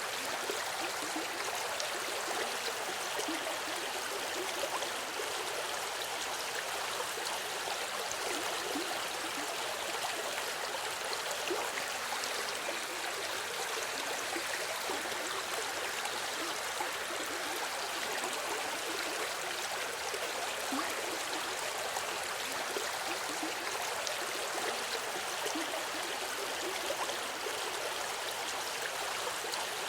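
Running river: water flowing and gurgling over stones, a steady rushing babble with no pauses.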